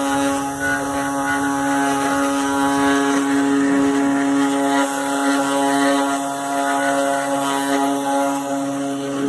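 3-axis CNC router's spindle running with a steady whine while the bit mills scrap wood, cutting noise mixed under the tone.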